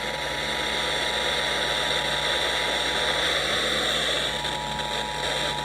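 Emergency Alert System two-tone attention signal (853 and 960 Hz together), a steady dual-tone alert heard through loud FM radio static hiss that is the louder of the two.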